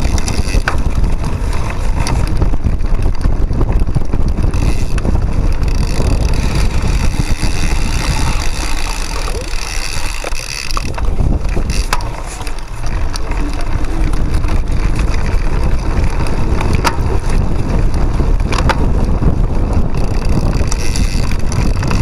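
Wind buffeting the microphone of a handlebar-mounted camera on a cyclocross bike riding over grass, with the bike rattling and a few sharp knocks from bumps in the course.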